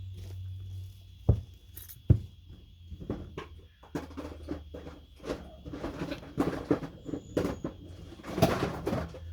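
Two sharp knocks, then several seconds of light clattering and rattling as a digital kitchen scale and a pot are handled on a work surface.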